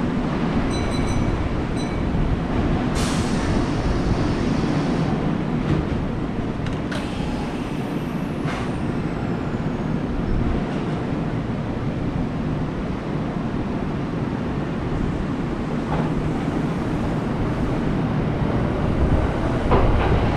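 Kintetsu electric train running at a station platform: a steady rumble of wheels and motors, with a few sharp clicks and a brief high whine that falls in pitch about eight seconds in.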